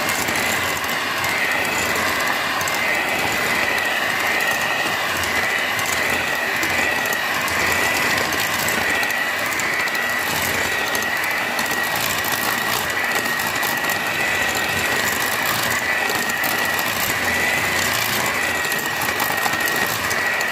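Moulinex electric hand mixer running steadily with a high whine, its beaters churning chocolate cake batter in a bowl.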